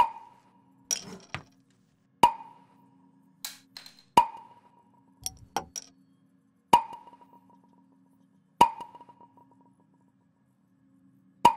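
Hollow pops from glass bottles, one every two seconds or so, each with a short ringing tone, with lighter clinks between them over a faint low hum.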